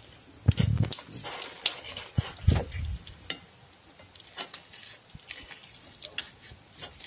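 Metal spoon scraping and clicking against a glass plate while scooping soft roasted eggplant flesh, with a few louder dull knocks in the first three seconds.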